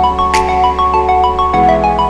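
Background music: a quick electronic melody of short notes over held chords and a bass line that changes about one and a half seconds in, with a brief swish about a third of a second in.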